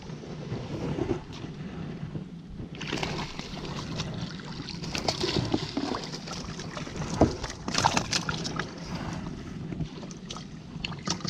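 A paddle working through shallow water beside a small boat: water splashing and swishing, stronger from about three seconds in, with a few sharp knocks a little past the middle.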